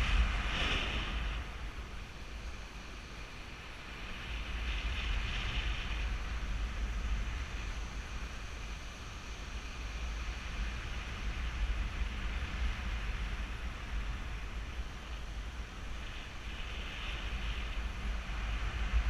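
Wind buffeting a GoPro Hero3's microphone in paraglider flight: a steady low rumble, with a hissing rush that swells twice.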